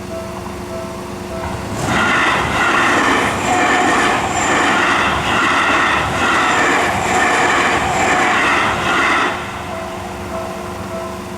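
A Seibu Shinjuku Line train passes over the level crossing for about seven seconds: a loud rush of wheels on rail with a regular clatter. Before and after it, the crossing's warning bell rings in a repeating on-off pattern.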